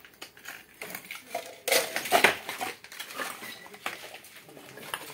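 Scattered clattering and crunching of broken debris, loudest about two seconds in.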